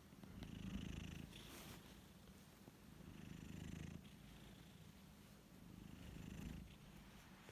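A sleeping cat snoring softly: a low, pulsing rumble that swells with each breath, three times about three seconds apart, with a faint airy hiss on each swell.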